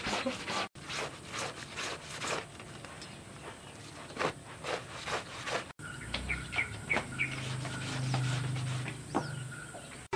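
Outdoor yard ambience: a string of short scrapes and knocks, then small birds chirping several times in quick succession, with a low steady hum rising underneath near the end.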